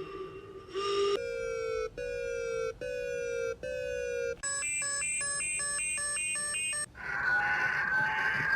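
Synthetic Emergency Alert System-style alarm tones, sped up, changing from one pattern to the next. First come four short beeps, each sliding slightly down in pitch. Then a high steady tone with pulsing beeps about three a second, and from about seven seconds in a buzzy, steady two-tone alarm.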